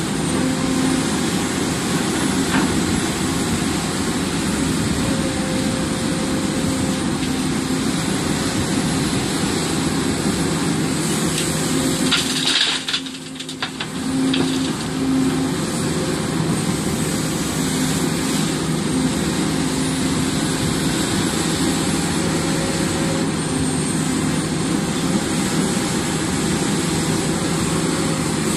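Hidromek HMK 300LC-3 excavator's diesel engine running steadily, with a short hiss and a brief drop in level about halfway through.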